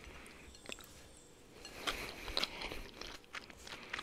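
Close-miked chewing of crunchy food, with a run of crisp crunches and wet mouth clicks starting about halfway through after a quieter stretch.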